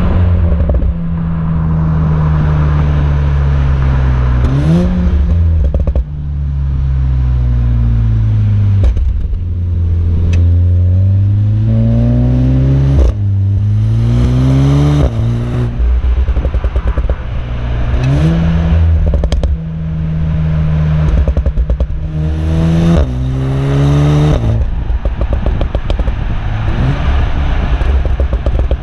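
VW Golf 7R's turbocharged 2.0-litre four-cylinder heard at its quad tailpipes, revving up through several quick gear changes and running back down as the car slows. Its exhaust note is punctuated by a few crackles around the gear changes and on lift-off.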